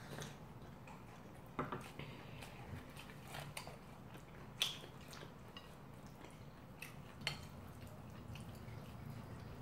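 Quiet eating at a table: soft chewing, with scattered short clicks of chopsticks against dishes.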